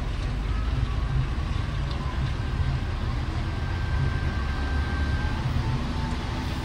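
Steady low rumble of an intercity bus's engine and running gear heard from inside the passenger cabin as the bus rolls slowly along.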